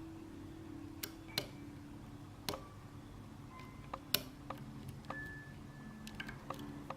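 Pick and tension wrench working the pins of a GERA six-pin euro pin-tumbler cylinder: a few sharp metallic clicks at irregular intervals as pins are probed and set, over a faint steady hum.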